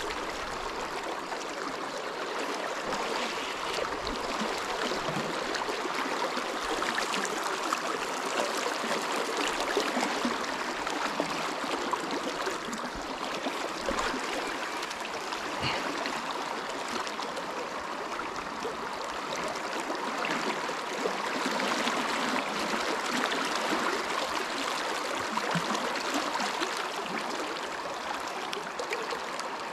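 River water rushing and rippling just below the microphone: a steady, even wash of flowing current.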